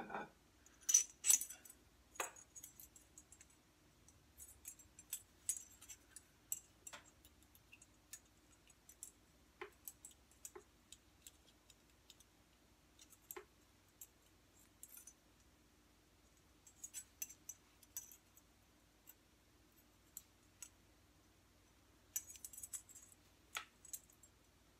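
Scattered small metallic clicks, taps and scrapes, some in quick clusters: a stiff steel wire and pliers being worked against a rusty coiled metal part as the wire is bent into a hook. A faint steady hum lies underneath.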